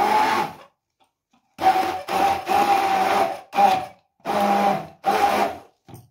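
Hand-held stick blender running in a jug of pear pieces and water, its motor whining at a steady pitch. It stops for about a second, then is switched on and off in six short bursts.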